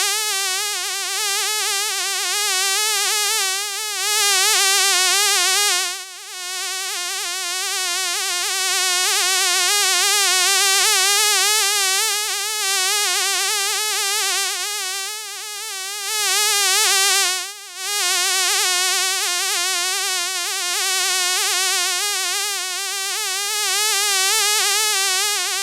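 Flying insect buzzing in flight: a continuous high whine with a rapid wavering pitch, swelling and fading as if passing close, with two brief drop-outs.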